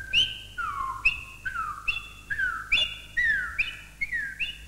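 High whistled notes, each sliding downward, repeated in a steady alternating pattern of a higher and a lower note, a little over two notes a second.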